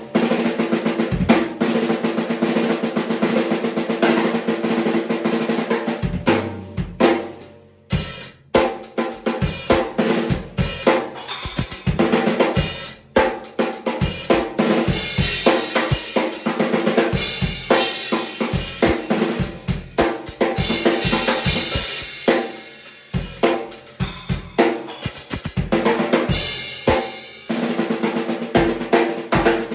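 Full drum kit being played, with a Mapex Hydro 13x7-inch snare tuned a little high over kick drum, hi-hat and cymbals, ringing in an echoey room. The playing thins out briefly about seven seconds in, then carries on with heavier cymbals from about halfway.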